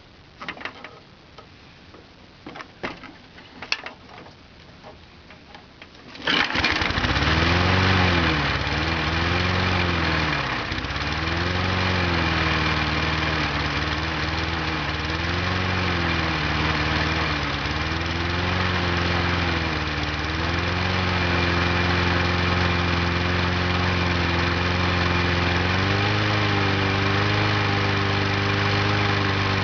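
A few sharp clicks and taps, then a Briggs & Stratton Sprint four-stroke lawn mower engine pull-started from cold catches about six seconds in. At first its speed hunts up and down about every two seconds, as a cold engine does. It then settles into a steady run and picks up speed near the end.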